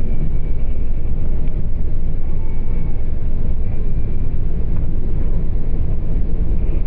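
A car driving: a steady, loud, low rumble of road and engine noise.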